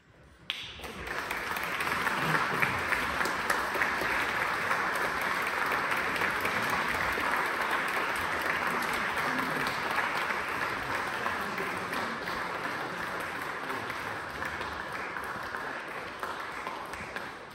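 Audience applauding in a large church, starting suddenly about half a second in, holding steady and dying away near the end.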